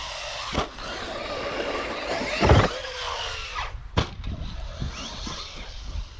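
Traxxas Rustler VXL RC truck driving, its electric motor whining with a falling pitch, and several sharp knocks from the truck hitting the ground. The loudest knock comes about two and a half seconds in.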